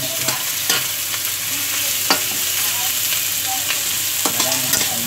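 Chopped onions sizzling in oil in a metal kadhai on low heat, stirred so that the spatula scrapes against the pan a few times.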